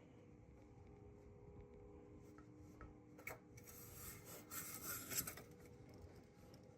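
Faint, continuous low mechanical hum made of several steady tones: an unexplained droning that is not a train. About three seconds in, a scraping rub lasting about two seconds is the loudest sound.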